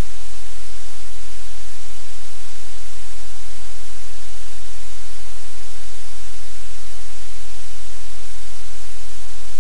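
Loud, steady static from the audio feed: an even hiss across the whole range with a strong low hum beneath, unchanging throughout.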